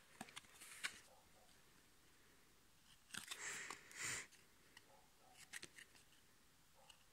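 Trading cards being handled: a few light clicks as cards are picked up off the pile, then a louder scraping shuffle of the card stack about three to four seconds in, followed by a few faint flicks as the cards are thumbed through.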